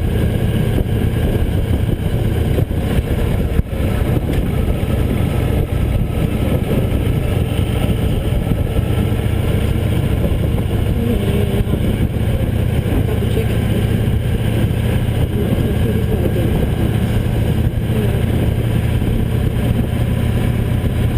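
Victory Cross Country motorcycle's V-twin engine running steadily while riding, with wind and road noise.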